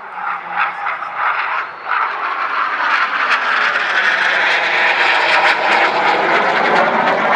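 IAR 99 jet trainer's Viper turbojet making a rushing jet noise. The noise grows steadily louder as the aircraft approaches in a display pass.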